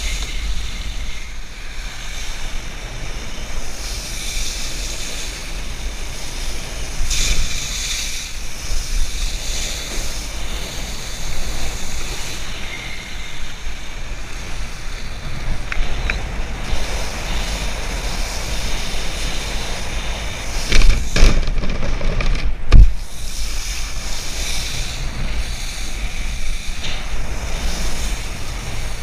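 Wind buffeting the body-mounted camera's microphone while a wakeboard cuts and sprays across the water on a cable tow, a steady rushing hiss with a low rumble. A little past two-thirds through come a few loud sharp thumps.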